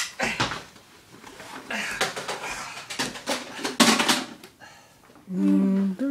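Irregular knocks, thuds and rustling from people moving and handling things in a small room, loudest about four seconds in. Near the end a voice starts humming a held tune that steps up in pitch.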